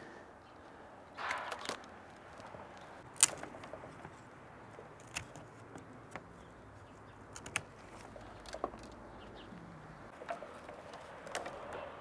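Hand pruning secateurs snipping climbing-rose canes: a few sharp clicks, the loudest about three seconds in, with a brief rustle of canes being moved near the start.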